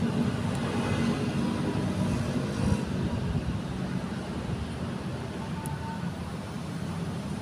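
Steady low rumble of background traffic noise.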